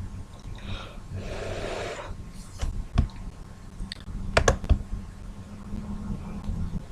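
A short hiss, then a few sharp clicks and taps: one about three seconds in and a quick cluster of three or four about a second and a half later.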